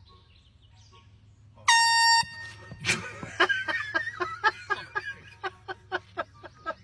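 A handheld air horn blasts once for about half a second, loud and shrill. A person then laughs in rapid repeated bursts, about three a second.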